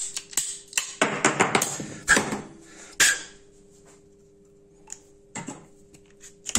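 Hand-held ratchet pipe shears clicking and crunching through a plastic PPR water pipe, ending in a sharp snap about three seconds in as the blade cuts through. A few faint handling clicks follow.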